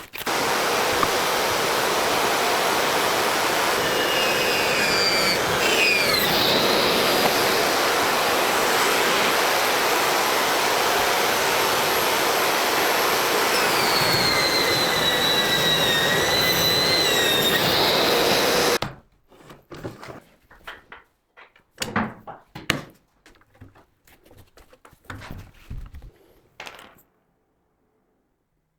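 Electric saw cutting through a wooden sheet board: a loud, steady cutting noise with a whine that drifts up and down in pitch, lasting about nineteen seconds before it stops suddenly. After that come a few light knocks of boards being handled.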